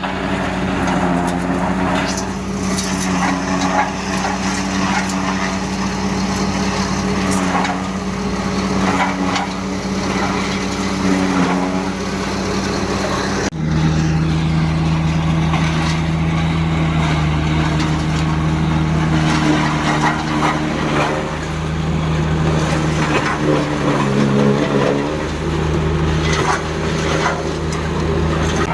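Heavy diesel engine of silage harvesting machinery running steadily under load, with scattered clatter. About halfway through, the sound cuts abruptly to a lower, steadier engine note.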